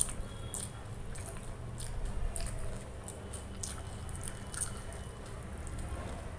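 Close-miked chewing of a mouthful of pea pulao, with wet mouth smacks and clicks coming irregularly, about two a second.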